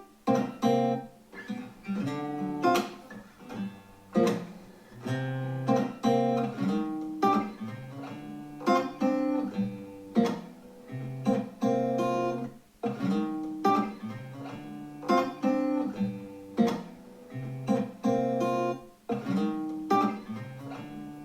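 Acoustic guitar playing plucked notes and chords in short phrases, heard as the soundtrack of an online guitar-lesson video played back on the computer.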